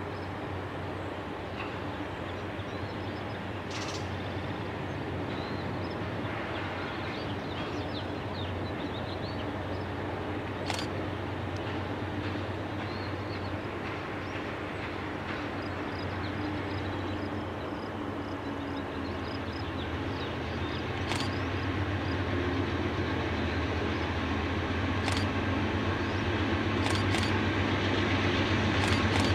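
Diesel locomotive approaching on the line: a low, steady engine drone that grows gradually louder. Short high chirps come through in the first half.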